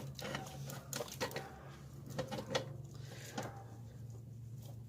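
Short metallic clinks and knocks as a replacement alternator is fitted back into its mounting bracket, several in the first few seconds and then quieter, over a steady low hum.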